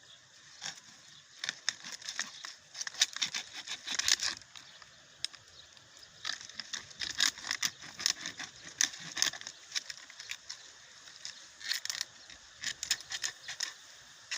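Boxes being handled and pulled apart by hand while a cage is built from them: irregular clusters of clicks, knocks and scrapes, with short pauses between the bursts.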